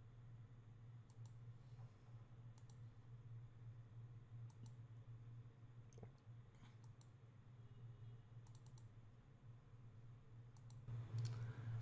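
Faint computer mouse clicks, about a dozen at irregular intervals, over a steady low hum.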